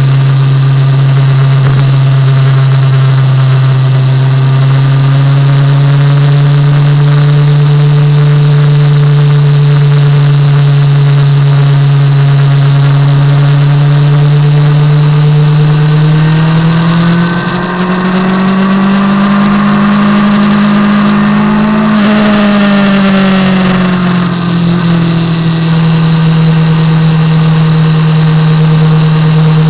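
Motorcycle engine running at a steady cruise. A little past halfway its pitch rises as it speeds up, holds for a few seconds, then eases back down.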